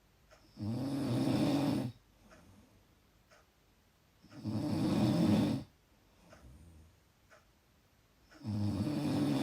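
Loud snoring: three low, buzzing snores about four seconds apart, each lasting just over a second, with much softer sounds between them.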